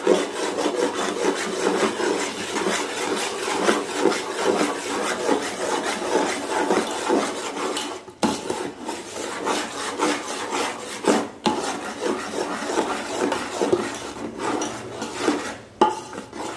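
Metal spoon stirring rice flour into thick, hot jaggery syrup in an aluminium pot: fast, continuous scraping and rubbing strokes against the pot, with brief pauses about eight and eleven seconds in. This is the stage where the flour is mixed into the syrup to make the ariselu dough.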